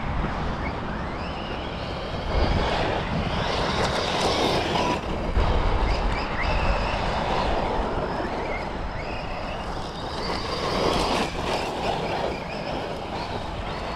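Losi Lasernut U4 1/10 brushless RC rock racer driving, its motor and drivetrain whining up and down in pitch with throttle over continuous rumble from the tyres and ground.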